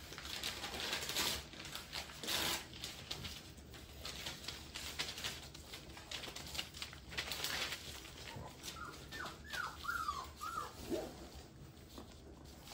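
Bullmastiff puppies at rough play: scuffling, clicking and scrabbling of paws and toys on a hard floor, with a quick run of short high whimpers about three quarters of the way in and a lower yelp just after.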